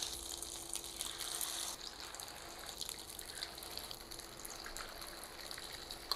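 Noodle pakoras frying in hot oil in a pan: a steady sizzling hiss with small crackles, dropping in level a little under two seconds in.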